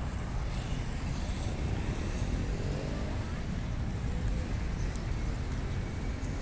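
Steady rumble of road traffic from passing cars, with faint voices of passers-by about halfway through.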